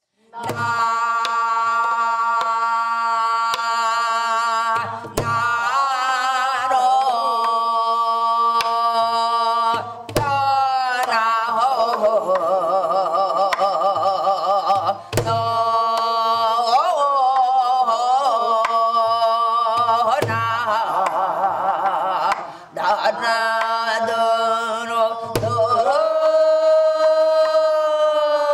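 Korean gueum, wordless vocal mouth-music, sung in long held notes with a wide vibrato, over a slow drum beat striking once about every five seconds.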